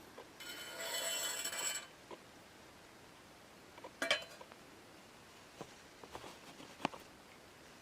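Small metal parts of a Coleman Northstar gasoline lantern being handled during disassembly: a scraping rub lasting about a second and a half, then a sharp metal clink and a few lighter clicks.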